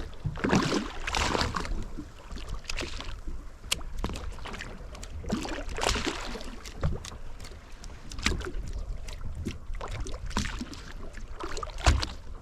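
Water lapping and slapping against the hull of a drifting fishing boat, with a low rumble and irregular knocks and clicks scattered throughout.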